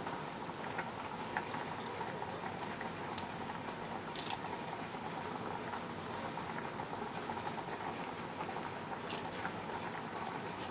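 Pot of sweet potatoes simmering on the stove: a steady bubbling crackle of the cooking liquid, with a couple of sharper ticks about four and nine seconds in.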